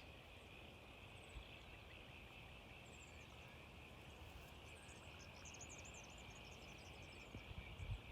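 Faint steady chorus of insects, a constant high shrill hum, with short high bird chirps about a second in, around three seconds, and in a cluster between five and six and a half seconds. A few low thumps near the end.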